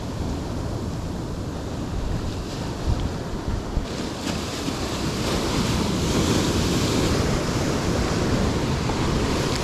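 Ocean surf washing in over rocks below, with wind rumbling on the microphone; the wash grows louder about four seconds in.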